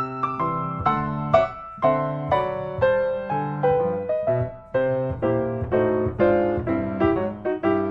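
Background piano music: a melody of single struck notes, about two a second, each fading away, over low bass notes.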